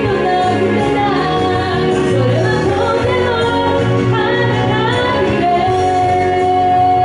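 A woman singing a pop song live into a microphone over band accompaniment, her melody moving and bending; a long steady note comes in near the end.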